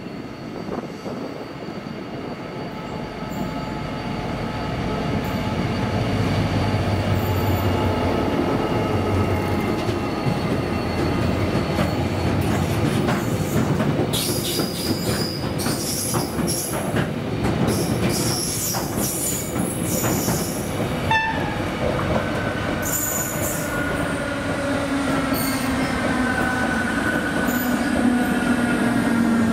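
Irish Rail 071 class diesel locomotive, with its EMD V12 two-stroke engine, grows louder as it approaches and passes with a low engine hum. The rake of Tara Mines ore wagons follows, rolling past with wheel clatter and bouts of high-pitched wheel squeal. Near the end, a DART electric train passing on the other track adds a motor whine that glides in pitch.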